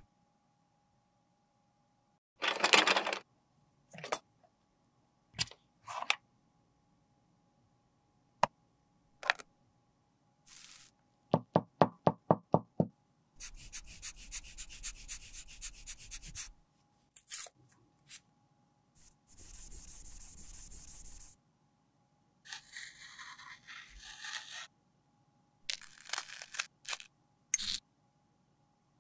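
Close-up handling sounds of makeup repair: scattered clicks and taps from a lipstick and its case, then a quick run of about eight light knocks. Next come several stretches of scratching and scraping on a pressed-powder highlighter, and quick clinks of a metal tool at glass beakers near the end.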